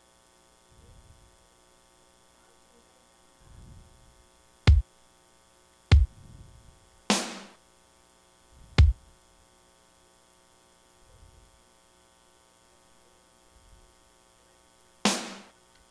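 Single sampled drum hits previewed one at a time in FL Studio's drum kit as notes are placed: three short low kick-drum thumps and two brighter, longer-ringing snare-like cracks, spaced a second or more apart. A faint steady mains hum runs underneath.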